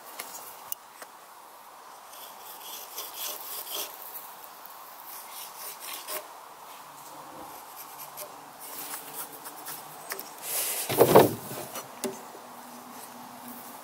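Combination square sliding and a pencil scratching against a round alder log as a cut line is marked out, soft, intermittent rubs and scrapes, with one louder scrape about eleven seconds in.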